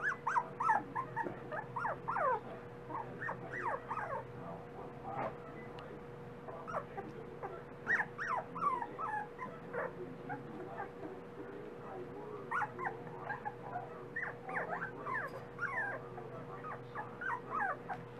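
Miniature dachshund puppies yipping and whimpering in short, squeaky bursts as they play-fight, the cries coming in clusters with brief pauses between.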